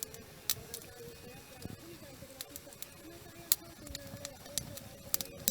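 Wood fire crackling, with a handful of sharp pops, the loudest about three and a half seconds in, over soft background music.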